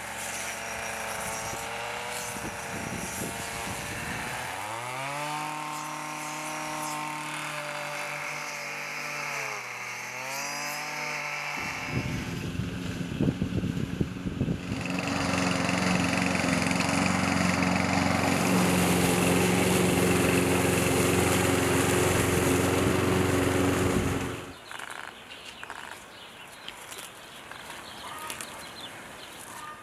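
A petrol string trimmer running, its engine revving up and easing off twice. Then a push lawn mower's engine runs steadily and louder for about twelve seconds and stops suddenly, leaving only faint rustles and clicks.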